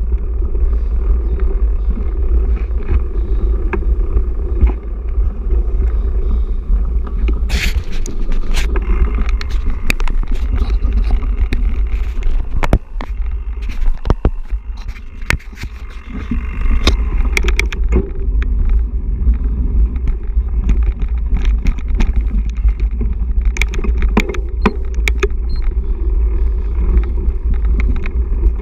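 Mountain bike ridden fast along a dirt forest trail: wind buffeting the camera microphone with a heavy rumble, over tyre noise and frequent clicks and rattles from the bike jolting over bumps and roots. The noise eases briefly about halfway through.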